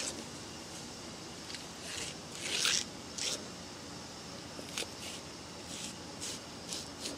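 Large green onion stalks being split and cut with a chef's knife on a plastic cutting board: a string of short, crisp crunching and scraping sounds, the longest and loudest about two and a half seconds in, then several quicker ones toward the end.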